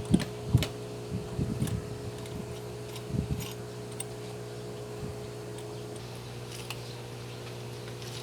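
Steady machine hum, with a few sharp knocks and clicks in the first few seconds.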